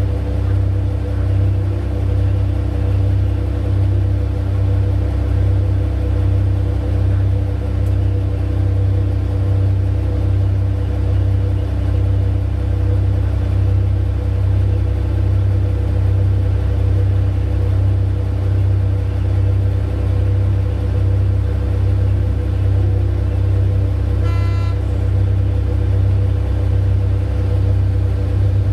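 Heavy mining-machine diesel engines running with a steady deep rumble, as the excavator loads the haul truck. A brief horn note sounds near the end.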